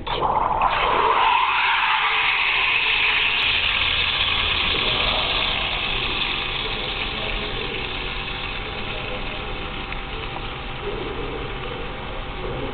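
Cimbali Turbosteam wand steaming milk in a stainless steel pitcher: the steam comes on suddenly and settles into a loud, steady hiss that eases off slightly over the following seconds.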